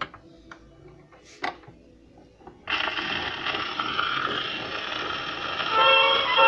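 Acoustic gramophone with a shellac 78 rpm record: a few sharp clicks and knocks as the soundbox and tone arm are set, then about two and a half seconds in the needle drops into the groove and a loud, steady surface hiss and crackle begins. Near the end the orchestra's first notes come through the hiss.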